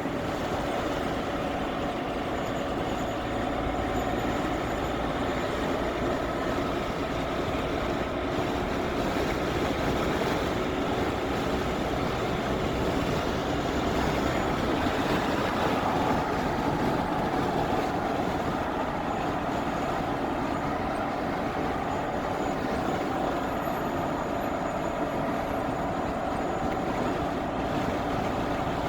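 A C400 vehicle running steadily, with constant road and running noise and a humming tone that wavers slightly in pitch. The owner is recording it as an unexplained weird noise.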